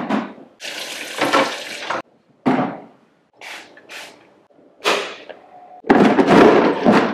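Hard plastic food containers being knocked together and stacked, then slid and scraped into a plastic freezer drawer: several sharp clacks with longer scraping slides between them, the loudest scrape near the end, each sound cutting off abruptly.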